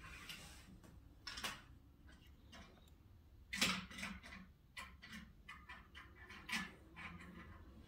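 Scattered plastic clicks and clacks of small toy cars being handled against a toy car carrier truck, with a louder knock about three and a half seconds in and a run of quick small ticks after it.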